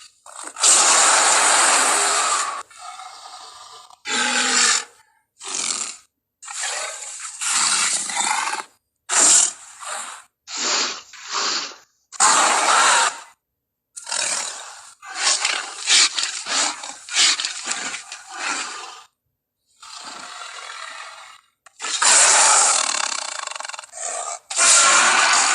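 Gorilla sound effects: a run of about a dozen separate harsh roars and grunts, each under a second to a few seconds long, with brief silent gaps between them.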